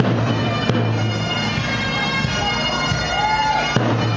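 Pipe band playing: bagpipes sounding a steady drone under the chanter's melody, with a bass drum struck a few times.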